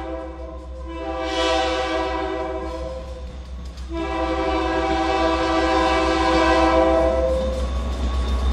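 Diesel locomotive's multi-note air horn sounding the grade-crossing warning: a long blast that ends about three seconds in, a short break, then a second long blast. After the horn stops, the locomotive's engine grows louder as it reaches the crossing.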